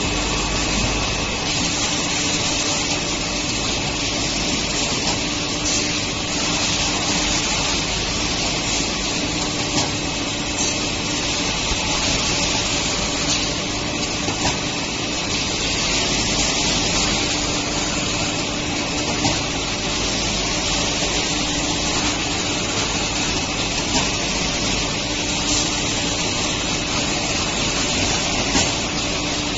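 Robotic carton packing line running: a steady hiss of machinery with a faint low hum and a high steady tone through it, and scattered light clicks.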